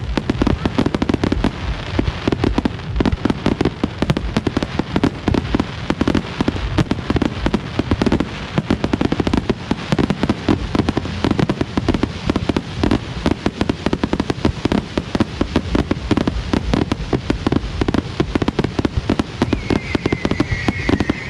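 Fireworks display: a dense, continuous barrage of bangs and crackling, many reports a second. A high whistle comes in near the end.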